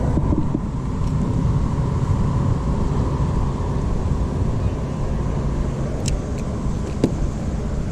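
Big tugboat passing, its engine giving a steady deep drone with a faint steady hum above it. Two sharp clicks near the end.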